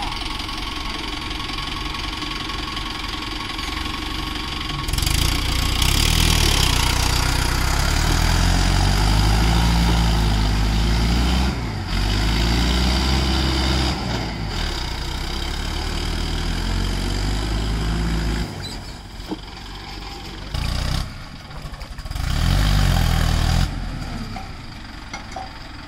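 Diesel farm tractor engines stuck in deep paddy mud: idling at first, then revved hard and held under load from about five seconds in for over ten seconds, dropping back around eighteen seconds, with another short hard rev near the end.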